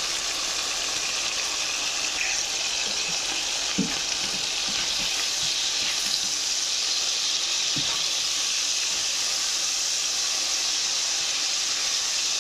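Cubed beef frying in hot oil in a pan, a steady sizzling hiss. A spatula stirring the meat adds a few faint knocks, the clearest about four and eight seconds in.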